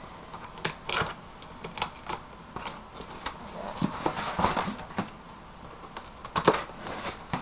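A cardboard shipping box being opened by hand: irregular clicks, scrapes and rustling of cardboard and packing, busier about four seconds in, with a sharper knock near the end.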